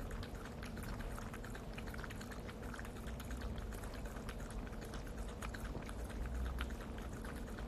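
Bichon Frise licking and lapping at the bottom of a stainless-steel food bowl after eating: a quick, irregular run of small wet clicks and slurps.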